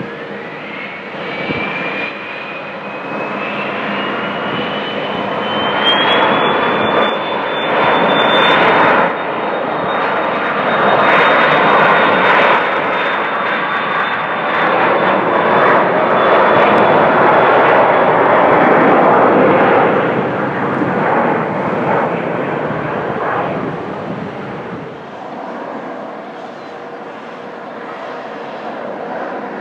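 Twin-engine business jet's rear-mounted turbofans spooling up for takeoff: a whine climbs steadily in pitch over the first several seconds, then the loud jet noise of the takeoff roll builds and fades off after about twenty seconds.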